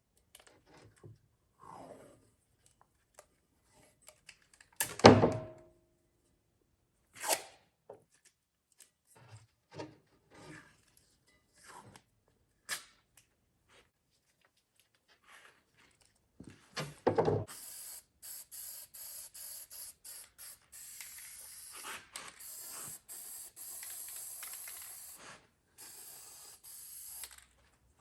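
Aerosol spray can hissing in a run of bursts through the second half, after a few scattered knocks and handling clatter, the loudest about five seconds in.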